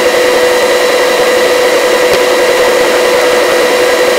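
Helicopter in forward flight: loud, steady engine and rotor noise with a constant high whine.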